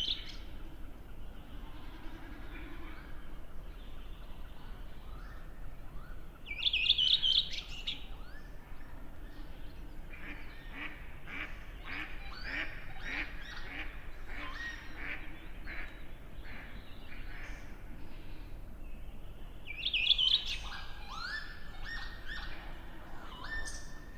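Redwing song: a short, loud, high phrase repeated three times, several seconds apart, over a busy dawn chorus of other birds, with duck calls among them.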